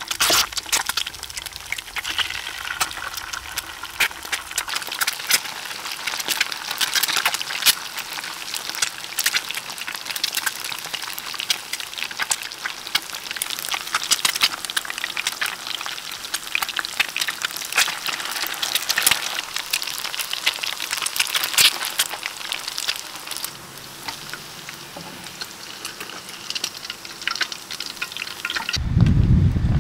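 Eggs frying in hot oil in a pan: a steady sizzle crowded with sharp crackling pops and spits. About a second before the end the frying stops and a low rumble takes over.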